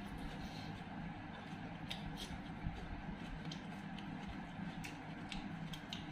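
Eating sounds: soft chewing and scattered short mouth clicks and smacks as rice and curry are eaten by hand, over a steady low hum.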